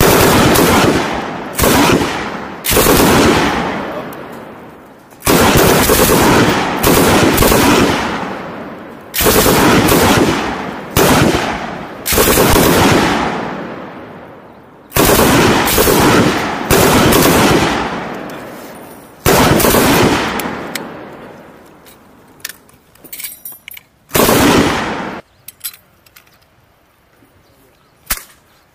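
M240B 7.62 mm belt-fed machine gun firing about a dozen short bursts of automatic fire, each ringing out and fading away before the next. Firing stops after about 25 seconds, leaving only a few faint clicks.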